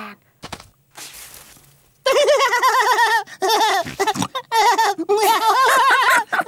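Cartoon child voices laughing: a small child's giggling starts about two seconds in, and a second child's laughter joins near the end.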